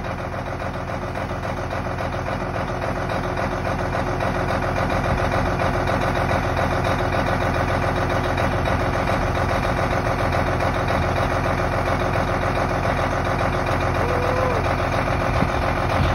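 Cabover semi truck's Detroit diesel engine running at a steady idle just after a cold start in freezing weather. It grows slightly louder over the first few seconds, then holds even.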